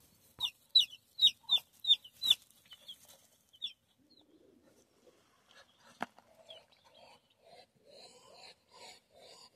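Chicken chicks peeping: a quick string of loud, high, falling peeps, about three a second, that thin out and stop after about three and a half seconds. Then only faint, softer calls, with one sharp tap about six seconds in.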